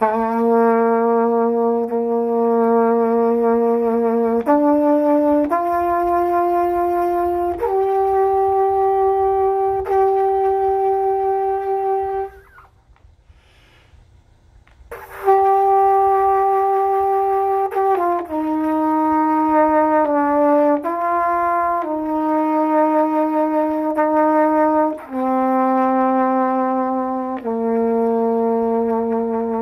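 Solo trumpet playing a slow melody of long held notes, with a breath pause of about two and a half seconds near the middle.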